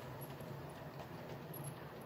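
Model train running out of sight on the layout: a steady low motor hum with faint rapid clicking of the wheels on the track.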